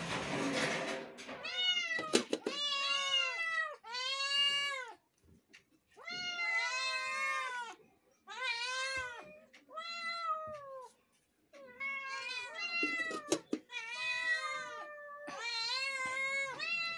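Several kittens meowing over and over, about ten drawn-out meows that rise and fall in pitch, separated by short pauses. A brief burst of noise comes right at the start, and a couple of sharp clicks are heard.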